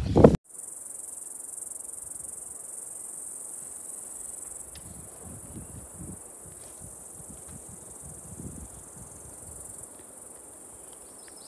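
Steady high-pitched insect chorus, an unbroken buzz that holds at an even level.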